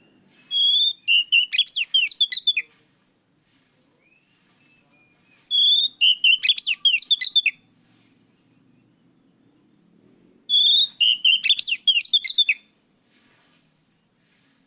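Oriental magpie-robin (kacer) singing: three loud phrases, about five seconds apart, each opening with a clear whistled note and running into a quick string of varied high notes.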